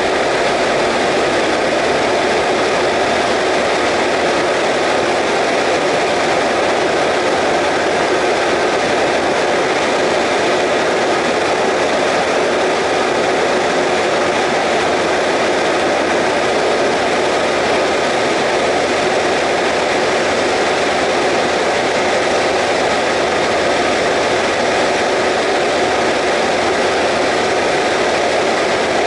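Single-engine light aircraft's piston engine and propeller running steadily in cruise, heard from inside the cabin as a loud, even drone mixed with airflow noise.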